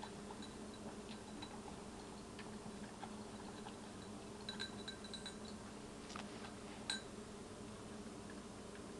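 French bulldog eating dry kibble from a bowl: faint scattered crunching and clicking, with a few short ringing clinks against the bowl about halfway through and a sharper, louder clink just before the end. A steady low hum runs underneath.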